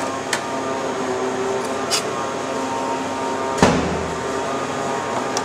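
Chef's knife and chicken pieces handled on a plastic chopping board: a few light clicks, then one sharp knock on the board a little past halfway, over the steady hum of kitchen ventilation.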